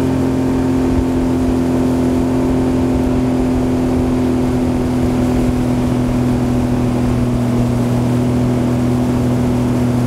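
A boat's outboard motor running at a steady speed while under way, holding an even pitch throughout.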